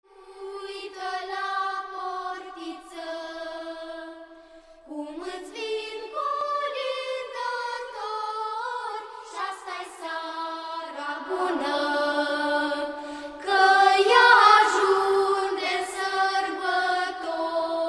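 A choir singing a slow melody in long held notes, with little or no accompaniment, swelling louder about two-thirds of the way through.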